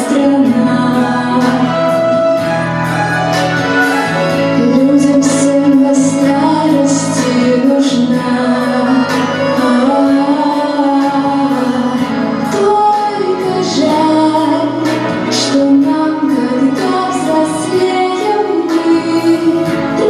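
A song with a woman singing over music with held bass notes.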